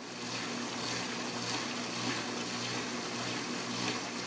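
Dishwasher running: water sloshing inside the tub as the spray arms splash it up against the tub and door, a normal sound, over a steady low hum.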